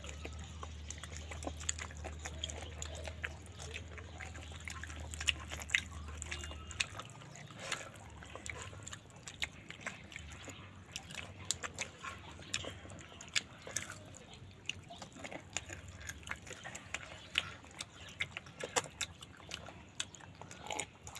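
Close-miked eating: a person chewing with irregular wet mouth clicks and smacks. A low steady hum sounds under it and stops about seven seconds in.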